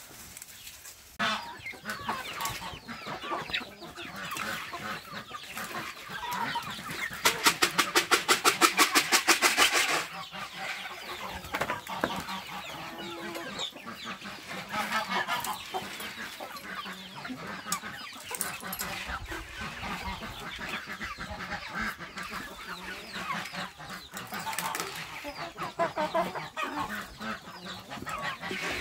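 Chickens clucking as they feed. About seven seconds in, one bird gives a loud, rapid run of calls lasting about three seconds.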